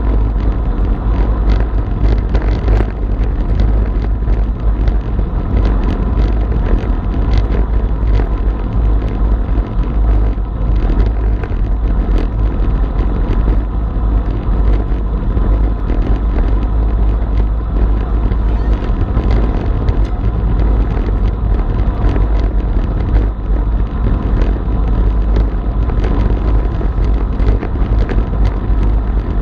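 Steady wind rushing over a bike-mounted action camera's microphone and tyre rumble from a road bike riding in a group at about 40 km/h, with frequent small clicks and knocks from road vibration.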